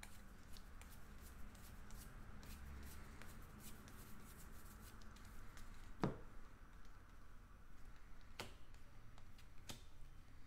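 Faint clicking and rustling of a stack of Bowman baseball cards being flipped through one card at a time in the hands, with a sharper click about six seconds in and a couple more near the end.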